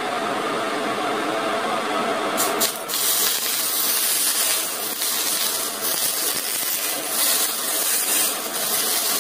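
Smoking-hot cooking oil poured from a wok onto steamed fish dressed with ginger, scallions and soy sauce, sizzling and crackling. The sizzle starts sharply about two and a half seconds in, over a steady hum before it.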